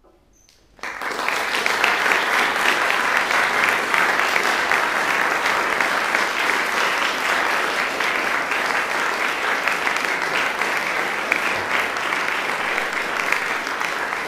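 Audience applause, starting suddenly about a second in after a moment of near silence and continuing steadily.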